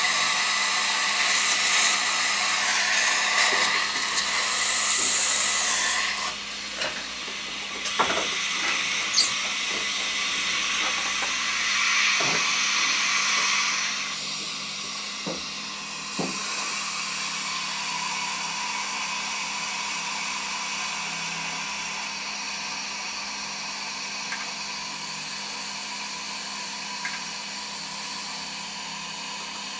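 Dental suction hissing steadily, with a louder hiss for the first six seconds as the scanning powder is sprayed across the teeth. A few light knocks near the middle.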